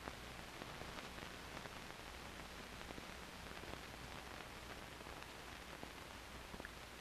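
Steady hiss of a 16mm film soundtrack with a low hum and a few faint scattered clicks.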